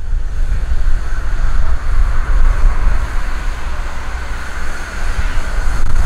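Steady vehicle road noise with heavy low wind rumble on the microphone, from driving with the microphone exposed.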